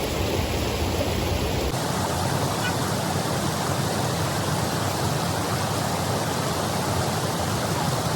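Steady rushing of a waterfall, with a sudden shift in the sound about two seconds in.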